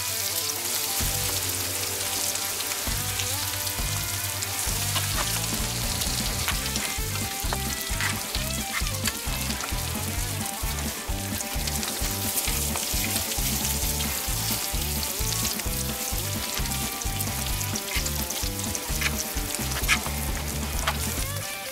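Bacon, onion rings and buttered toast sizzling on the hot steel of a wood-fired griddle plate, with a few sharp clicks as the food is handled with metal tongs. Background music with a steady pulsing bass plays under it.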